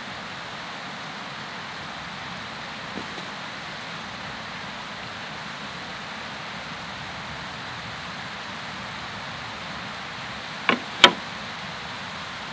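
Shed reindeer antlers knocking against each other as they are laid on a pile, two sharp clacks about three-quarters of the way through, with a faint tick earlier. A steady rushing outdoor noise runs under them.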